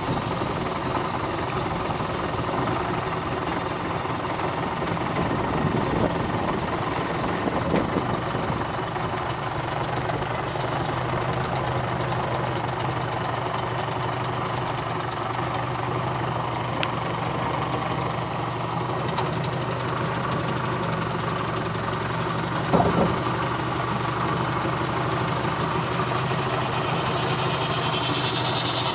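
Small boat's outboard motor running steadily at low, idling speed. A single knock about two-thirds of the way through.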